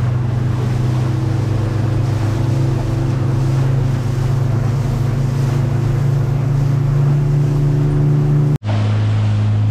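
Motorboat engine running under way, a loud steady drone that creeps slightly higher in pitch, with wind and water rushing past. There is a sudden brief break near the end, after which the engine drone carries on a little lower.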